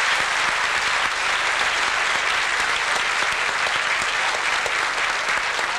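Audience and performers applauding in a hall: steady, dense clapping.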